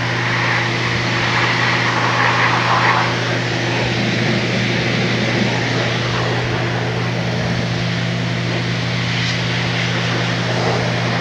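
Pressure washer running at about 1,000 PSI: a steady motor and pump drone with the hiss of the water jet rinsing an engine bay, the spray a little stronger in the first few seconds.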